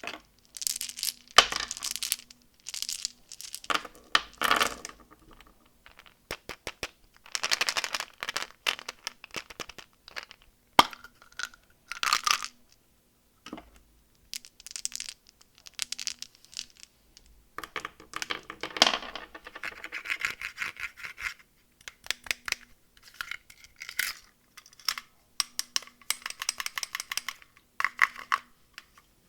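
Candy packaging being unwrapped by hand: plastic wrappers crinkling and tearing in irregular bursts, with small clicks and taps in between.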